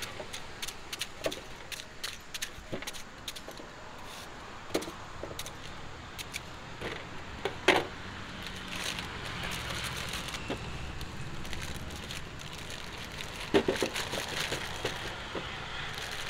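A kitchen knife clicking and tapping against a stainless steel tray as fruit is sliced, with a few louder knocks and a stretch of plastic bag rustling as the slices are bagged, over a low steady background hum.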